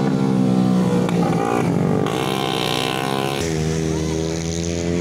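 Motorcycle engines running, with one bike riding past along the bend. The engine note shifts about three and a half seconds in.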